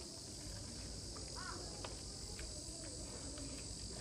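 Steady high-pitched insect drone, with a few faint clicks and one short rising-and-falling chirp about a second and a half in.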